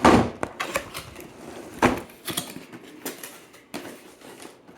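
Cardboard packaging being handled and opened by hand: a loud thump at the start and another about two seconds in, between scattered clicks and rustles.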